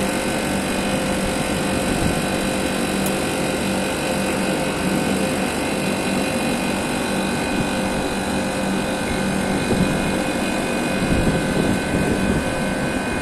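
Air-conditioner outdoor units running: a steady whir and hum with a few constant tones.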